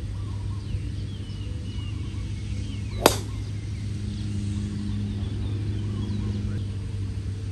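A golf driver strikes the ball off the tee once, a single sharp crack about three seconds in, over a steady low hum.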